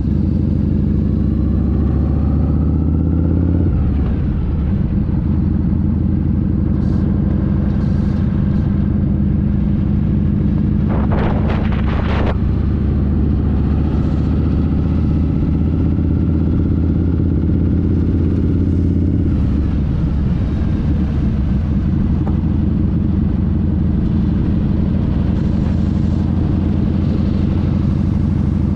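Harley-Davidson Fat Boy's air-cooled Evolution V-twin running under way. It rises in pitch as it accelerates for the first few seconds, drops at a gear change, then pulls steadily at cruising speed. The engine note changes again about two-thirds through.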